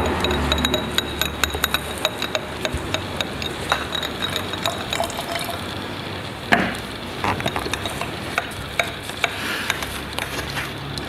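Paintbrush stirring paint in a jar: many small irregular clicks and taps against the jar over a wet swishing, with one louder knock about six and a half seconds in.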